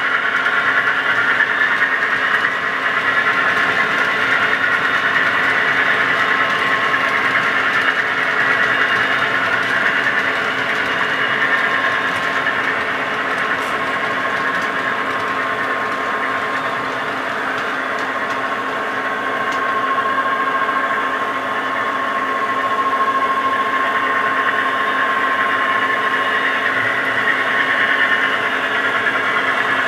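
Diesel engine sounds from DCC sound decoders in OO gauge model locomotives, played through their small onboard speakers and running steadily throughout.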